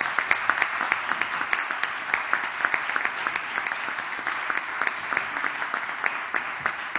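Audience applauding: many people clapping steadily, individual sharp claps standing out from the dense patter.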